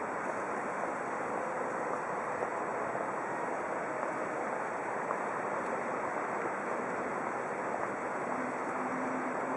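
Steady rushing of the flooded Elbe's fast-flowing floodwater, an even noise with no breaks; a low steady hum joins near the end.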